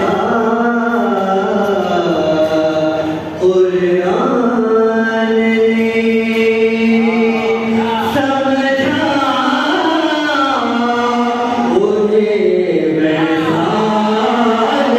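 Devotional chanting by a solo voice, sung in long held notes with wavering ornaments, phrase after phrase with short breaths between.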